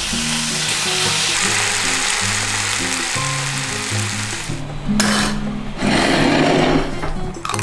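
Bacon and salami slices sizzling in a frying pan, a steady hiss under background music. About five seconds in the sizzling stops and a short, louder noise follows as things are set down on a wooden table.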